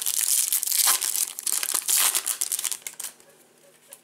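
A 2020 Topps Gallery baseball card pack's plastic wrapper being torn and peeled open, crinkling and crackling for about three seconds.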